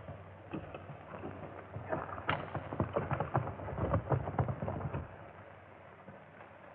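Hoofbeats of several galloping horses, a dense irregular clatter that is loudest from about two to five seconds in, then fades away.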